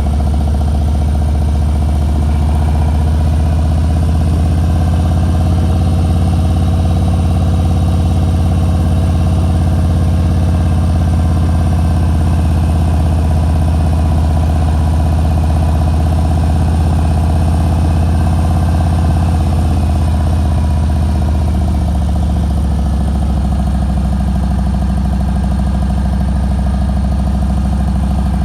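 Motorcycle engine running at a steady, even speed, a constant low drone with no rises or falls in pitch.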